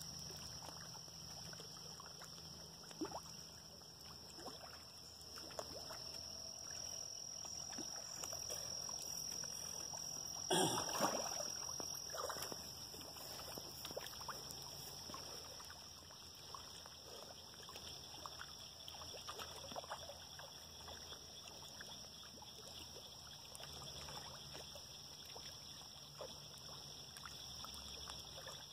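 Fish feeding at the surface of a pond: small plops and splashes scattered throughout, with one louder splash about ten seconds in, over a steady high hiss.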